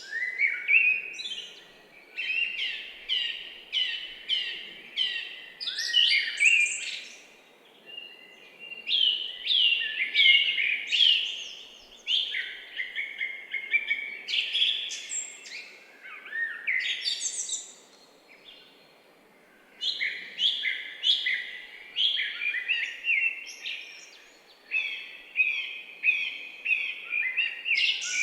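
Songbirds singing, phrases of quick, rapidly falling whistled notes repeated every few seconds with brief pauses between, over a faint steady background hiss.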